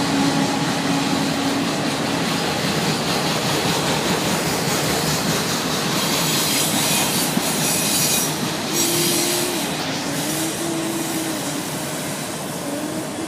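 Freight train of autorack cars rolling past close by: a steady rush of steel wheels on rail. A low steady tone fades out after about two seconds, and thin wavering squeal tones come and go in the second half.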